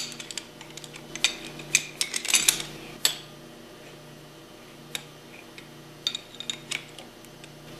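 Metallic clinks and light taps of steel bolts and parts being handled as the pump's discharge manifold bolts are turned in by hand. The clinks come in a quick cluster for the first few seconds, stop, and come back as a few more near the end, over a faint steady hum.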